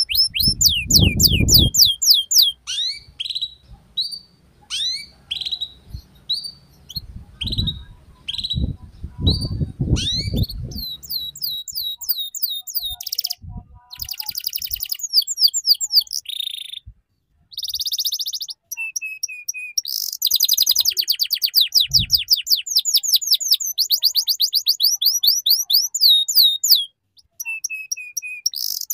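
Young domestic canary singing a long 'ngeriwik' song: rapid high trills and runs of falling chirps, with a few buzzy phrases and brief pauses, the fastest, densest trilling in the second half.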